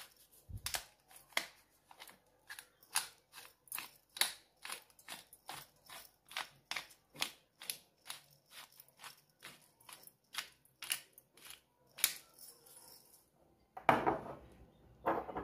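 A hand-twisted pepper mill grinding mixed peppercorns, a sharp crunching click with each twist at about two to three a second, stopping about twelve seconds in. A louder handling noise comes near the end.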